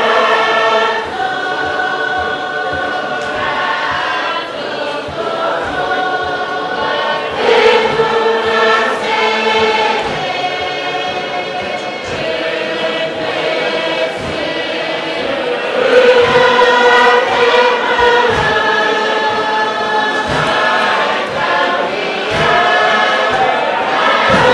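Tuvaluan fatele song: a large group singing in chorus, held notes changing every second or two, over regular low thuds of the beat.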